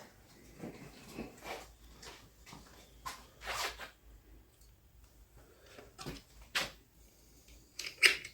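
Scattered light clicks, knocks and rustles of things being handled, with quiet stretches between; the sharpest knocks come about three and a half, six and a half and eight seconds in.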